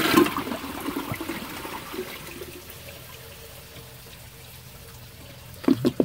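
An old toilet flushing on a 1.6-gallon tank: loud swirling and draining water that dies down over the first couple of seconds to a faint trickle as the flush ends.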